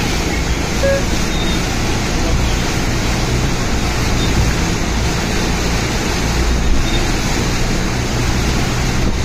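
Steady noise of heavy rain and wind, with a low steady hum underneath.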